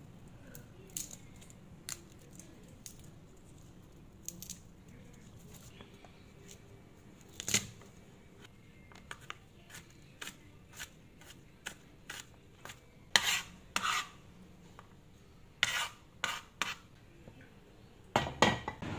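Kitchen food-prep sounds: garlic cloves being peeled and cut with a chef's knife on a plastic cutting board, making scattered sharp taps and clicks. Louder knocks come in the second half, with a short cluster near the end.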